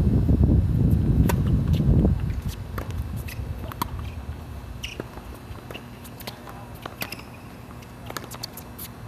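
Wind buffeting the microphone for about the first two seconds, then a tennis rally on a hard court: sharp racket-on-ball strikes, ball bounces and shoe scuffs as short separate clicks and ticks.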